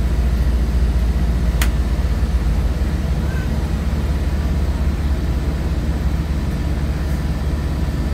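Steady low rumble of a vehicle engine, with one sharp click about one and a half seconds in.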